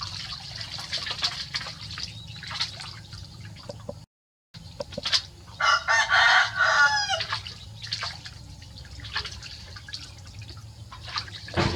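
A rooster crows once, loudly, about six seconds in. The call lasts about a second and a half and falls in pitch at the end, over a steady background of water and dripping.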